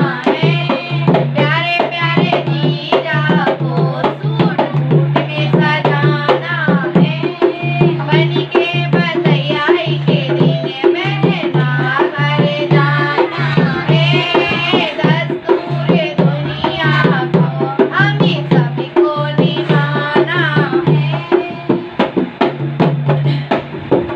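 Female voices singing a bhat geet, a wedding folk song, to a steady dholak beat, the drum's deep bass strokes repeating under sharp slaps. Near the end the singing drops away while the dholak keeps playing.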